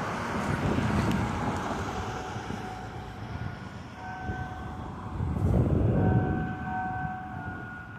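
Church bells chiming, several ringing tones overlapping from about three seconds in, over a steady low rumble.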